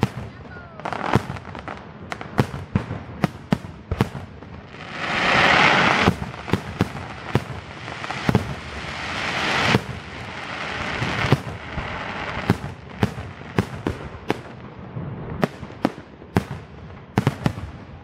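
Aerial fireworks shells bursting in a rapid series of sharp bangs, one every half second or so. Two spells of sustained rushing noise build up among the bangs, one about five seconds in and a longer one that swells and cuts off near ten seconds.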